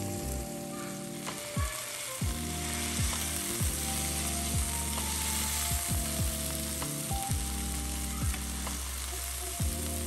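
Cod fillets frying in melted butter in a nonstick pan, a steady sizzle. Over it runs background music with deep held bass notes and a beat.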